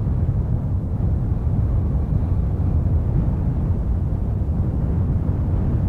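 Deep, steady rumble of an erupting volcanic crater, without distinct bangs or bursts.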